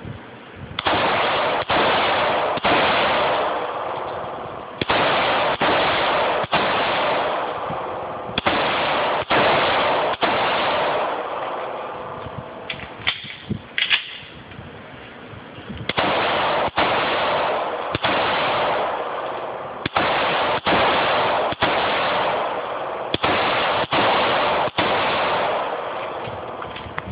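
A Ruger SR9 9mm pistol fired in six strings of three shots, the shots in each string about a second apart and a few seconds between strings: the two-to-the-body, one-to-the-head pattern of the Mozambique drill. Each shot rings out in the reverberant indoor range, and a few fainter sharp sounds come in the pause near the middle.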